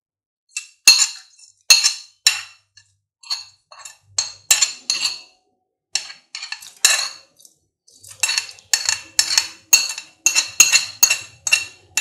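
Metal utensils clinking against a metal pot again and again, each strike ringing briefly, while crushed pepper, cumin and ginger are transferred into the water. The clinks are irregular at first and come faster, about two a second, from about two-thirds of the way in.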